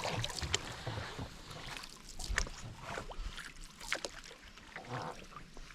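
Canoe being paddled on a river: paddle splashes and water drips with scattered light clicks and knocks.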